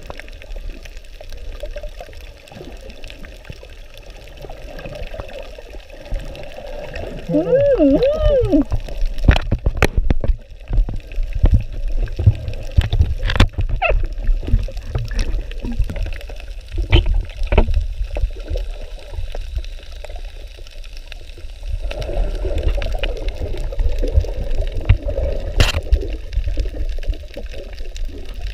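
Seawater sloshing and gurgling close around the camera, with a steady low rumble and scattered sharp clicks.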